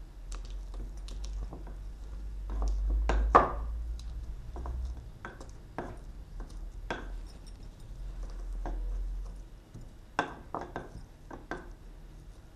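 Garlic being pounded with a pestle in a small mortar: irregular sharp knocks, one or two a second, some in quick pairs.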